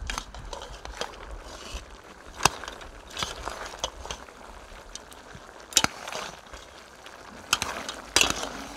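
A metal slotted spoon stirring curry goat in a large steel cooking pot: scraping, with a few sharp clinks of the spoon against the pot.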